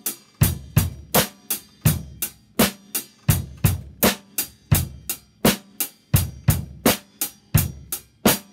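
Drum kit played with sticks in the 'Train Time' pattern: a steady stream of snare drum strokes, loud accents alternating with quieter ones, about three a second, with kick drum beats landing under some of them in a double-kick variation.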